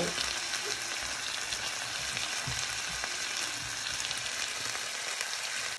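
Strips of beef, chicken and mushrooms sizzling in olive oil in a hot grill pan, a steady frying crackle, with a few soft knocks as a wooden spoon stirs them.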